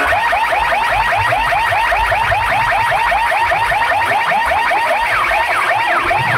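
Alarm-like electronic sound effect blasted through a large outdoor DJ sound system: short rising chirps repeated rapidly, about four to five a second, over a low bass rumble.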